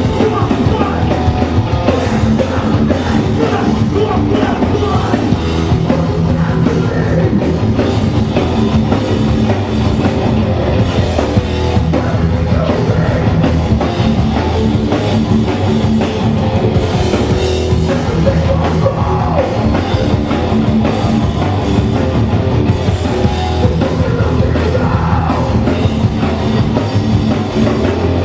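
Hardcore punk band playing live: distorted electric guitars, bass and drum kit at full volume, with shouted vocals.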